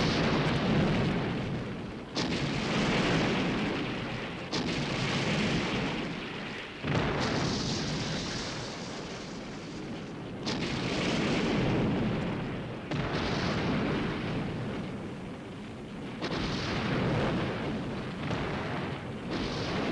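A string of film explosion sound effects. Each is a sudden blast that trails off into a long rumble, one every two to three seconds.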